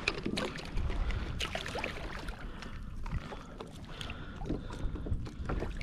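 Choppy water lapping against a plastic fishing kayak's hull, with wind rumbling on the microphone and scattered small clicks and knocks.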